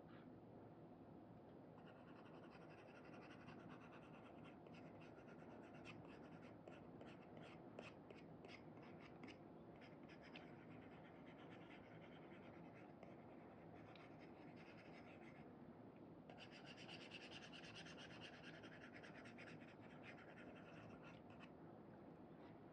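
Faint scratching of an Apple Pencil 2 tip stroking across a paper-like matte screen protector on an iPad, in quick short strokes. It starts about two seconds in, pauses briefly past the middle, then picks up densely again.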